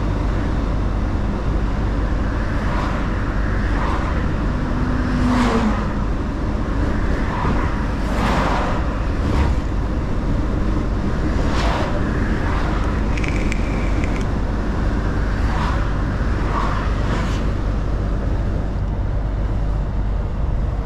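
Mercedes-Benz Actros L truck driving at speed: a steady low engine and road drone, with several short whooshes along the way.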